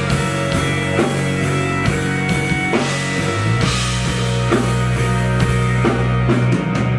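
Indie rock band playing live in an instrumental passage between vocal lines: drum kit, bass and guitar. The bass note drops about halfway through.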